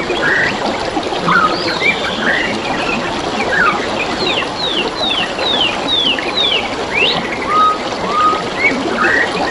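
Several wild birds calling and singing over steadily trickling, gurgling stream water. About four seconds in, one bird gives a run of about six quick falling whistles, roughly two a second.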